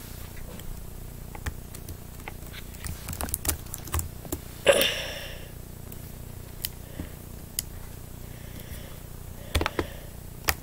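Quiet room tone with a steady low hum, broken by scattered faint clicks and taps and a brief rustle close to the microphone about five seconds in.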